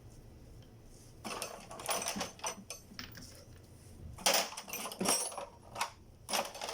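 Metal parts and hand tools clinking and clattering while steering-rack parts are handled and fastened. It starts about a second in, with two sharp knocks about four and five seconds in.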